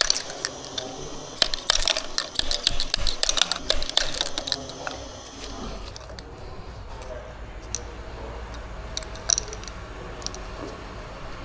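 Metallic clicking and clinking of tools and small metal engine parts being handled. The clicks come thick and fast for about the first five seconds, then thin out to a few scattered clicks.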